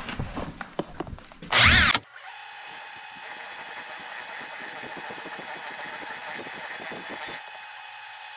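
A drill turning a paddle mixer through thinset mortar in a plastic bucket, with scraping and clatter at first and a loud burst from the drill about a second and a half in. After that comes a steady high whine.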